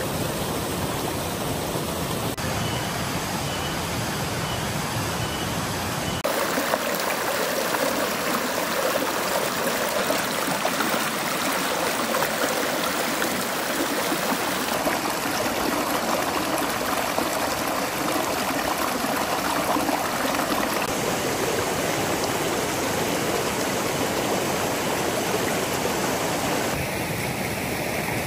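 Shallow rocky stream running and splashing over stones, a steady rush of water. The rush changes abruptly several times, growing louder from about six seconds in as small rapids come into play.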